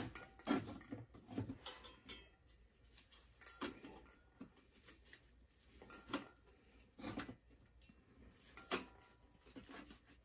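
Scattered faint clicks and metallic knocks of metal parts and hand tools being handled at a small bench vise, with quiet gaps between them.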